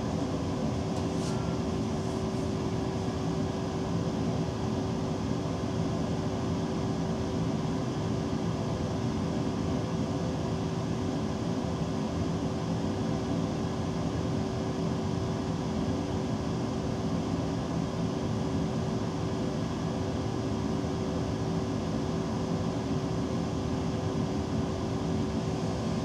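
Steady hum and fan-like noise inside the driver's cab of a DB Class 425 electric multiple unit, with one constant mid-pitched tone that neither rises nor falls.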